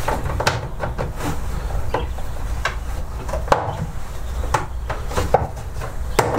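Plastic parts of a roll-out laying nest being handled and fitted together: irregular hollow plastic clicks and knocks, with some rubbing and scraping.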